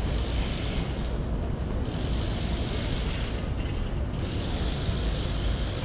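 Outdoor walking ambience: a steady low rumble, with a higher hiss that comes and goes in spells of a second or two.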